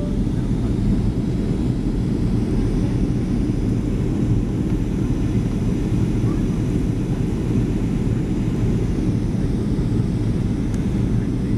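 Steady cabin noise inside a Boeing 737 in flight: the jet engines and rushing airflow make a dense, even low rumble that does not change.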